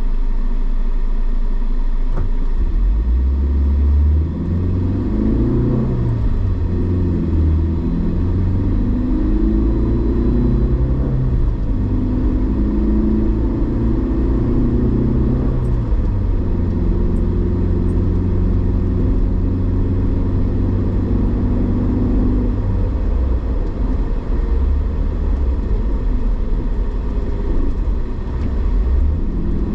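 Engine and road noise heard inside a moving car's cabin, with a low engine note that changes pitch in steps as the car drives along.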